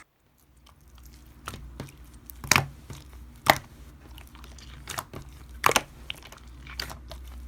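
Slime being squeezed and poked by hand, making irregular sharp clicks and crackling pops over a faint low hum.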